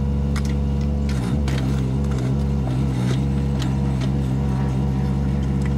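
A 1.5-tonne mini digger's diesel engine running steadily while the arm and bucket dig, its note wavering slightly as the load changes. A few light clicks and scrapes sound over it.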